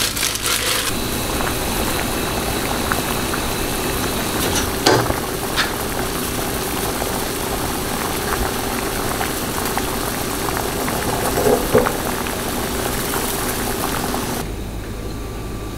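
Galbitang (beef short-rib soup) boiling vigorously in a small pot on a gas burner, a steady dense bubbling with a few light clicks. It stops abruptly about a second before the end.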